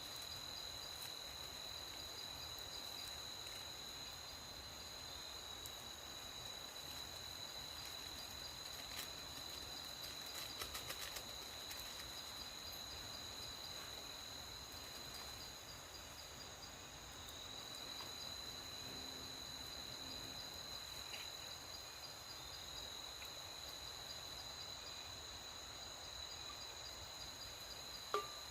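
Night insects chirring steadily in a high, continuous drone, with a brief cluster of faint clicks about ten seconds in and a single sharp click near the end.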